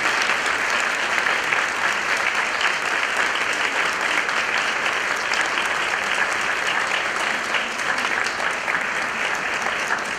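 A large audience clapping in sustained, steady applause.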